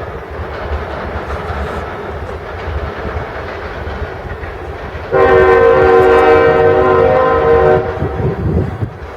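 Freight train rolling past with a steady rumble and wheel clatter. About five seconds in, a diesel locomotive's multi-chime air horn sounds one long steady blast of nearly three seconds, the loudest thing here, and then the rumble carries on.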